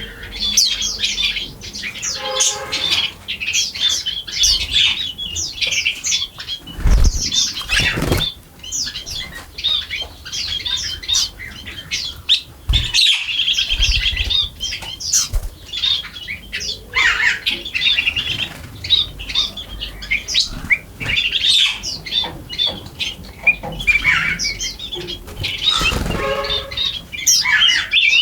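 A flock of birds chirping busily, many short high calls overlapping throughout, with a few harsher, lower calls and occasional flutters of wings.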